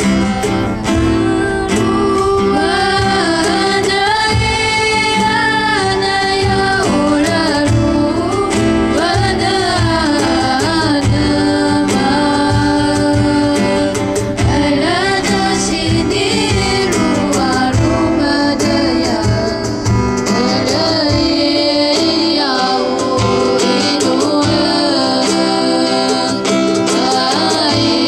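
A Paiwan folk song sung live by voices over strummed acoustic guitar, the melody moving steadily without a break.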